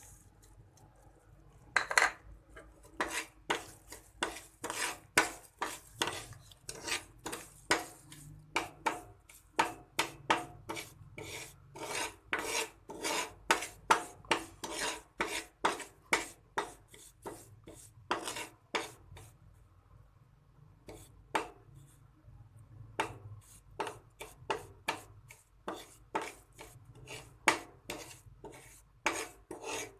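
A spoon scraping and stirring in a cooking pan, mixing sugar into flour roasted in ghee for atta halwa. The strokes come about two to three a second, with a short pause about two-thirds of the way through.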